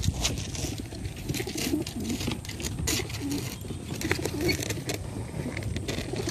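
Pigeons cooing low and repeatedly inside a plastic carrier crate, with scattered clicks and knocks from the crate.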